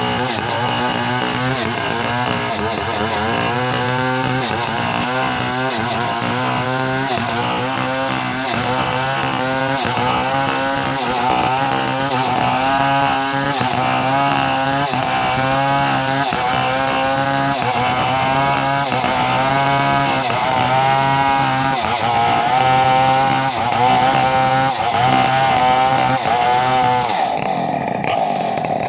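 Two-stroke chainsaw running at high revs, its engine pitch wavering up and down about once a second as it works under load. Near the end the pitch drops and the sound thins out.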